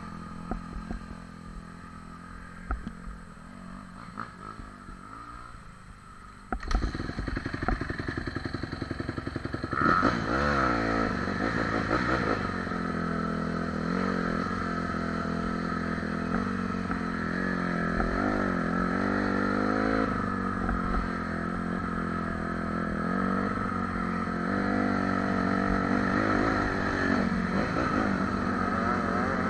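Honda CRF dirt bike's four-stroke single-cylinder engine running, heard from the rider's helmet: it ticks over quietly for the first few seconds, then the throttle opens sharply about seven seconds in and the bike rides off along the trail, its pitch rising and falling with throttle and gear changes.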